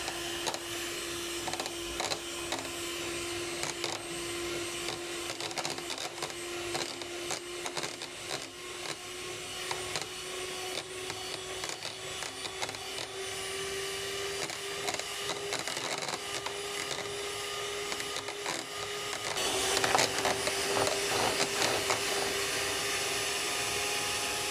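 Electric hand mixer running steadily, its twin wire beaters creaming butter in a bowl and clicking against the bowl's sides. The motor hum creeps slightly up in pitch, and the sound turns louder and more rattly about twenty seconds in.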